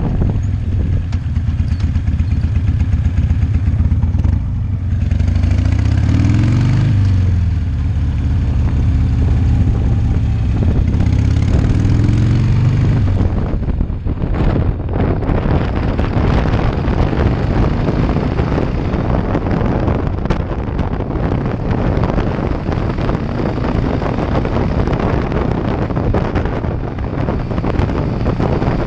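Harley-Davidson V-twin motorcycle engine accelerating, its pitch rising and dropping twice through gear changes in the first half. After that, steady wind rushing over the microphone at cruising speed covers most of the engine.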